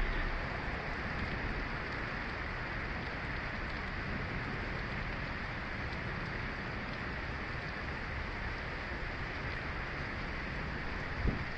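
Heavy rain falling on a car's roof and windshield, heard from inside the car as a steady hiss, with one short low thump near the end.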